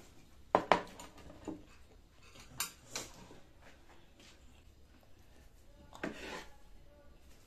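Metal fork clinking and scraping against a ceramic plate: two sharp clinks about half a second in, two more around three seconds in, then a brief softer noise near the end.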